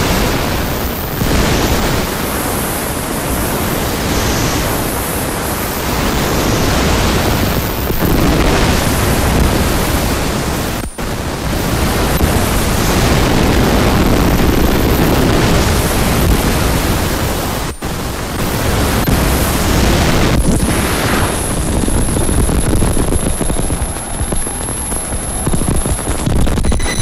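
Harsh noise music: a loud, dense wall of distorted noise, cut up with two sudden split-second dropouts. A high steady whistle comes in about two-thirds of the way through and sits on top of the noise.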